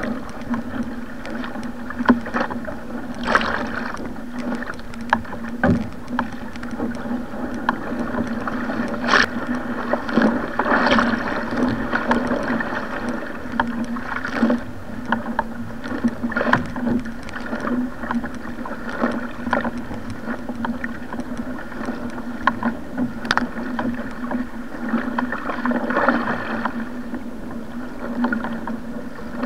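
Water rushing and slapping along a Stellar SR G2 surfski hull in rough, wind-driven sea, with irregular sharp splashes and a steady low hum underneath.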